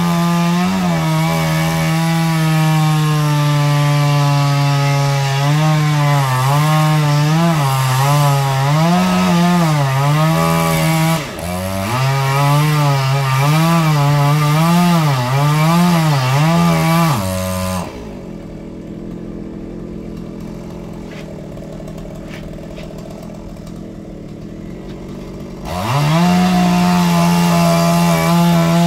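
Chainsaw at full throttle cutting into a pine trunk, its pitch dipping and recovering again and again as the chain bogs under load in the wood. About eighteen seconds in it drops to a quieter low idle for several seconds, then revs back up to full speed near the end.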